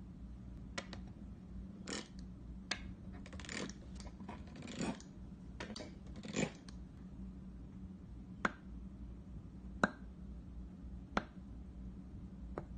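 Plastic wavy-edged dough cutter pressing through a disc of Play-Doh, with soft squishy scraping sounds in the first half. Later come single sharp clicks a second or so apart as the plastic taps the wooden table.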